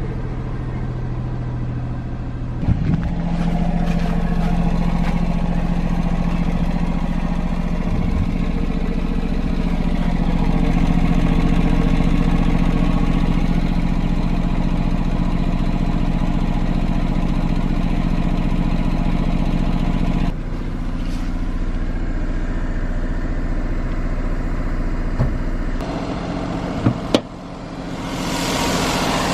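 Daihatsu Move L150S's three-cylinder engine running with a loud exhaust note. The owner believes the middle cylinder's ignition coil has failed, so the engine is running on two cylinders. Its note steps up about three seconds in and falls back about two-thirds of the way through, with a couple of sharp clicks near the end.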